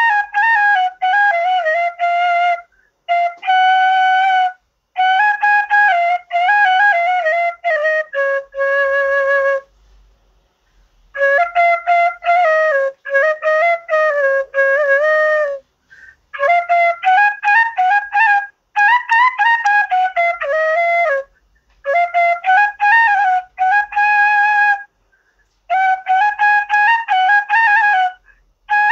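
Background instrumental music: a single melody line played in short phrases separated by brief pauses.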